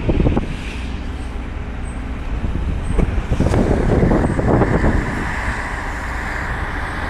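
Steady low rumble of a car driving, with road and wind noise. It grows louder and gustier about three seconds in.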